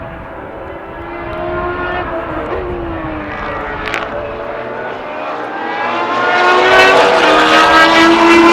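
Unsilenced historic racing car engine at high revs, changing gear about two and a half seconds in and again near the end, with a sharp crack around the four-second mark. It grows much louder over the last two seconds as the car approaches.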